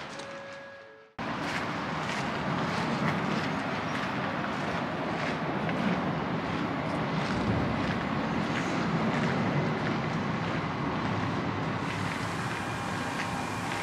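Train moving on the tracks: a steady running noise with many short clicks, starting abruptly about a second in.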